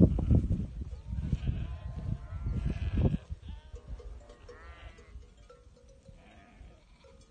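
Karayaka sheep bleating, several wavering calls in the first three seconds and another couple about four and a half seconds in, over a low rumble that dies down after about three seconds.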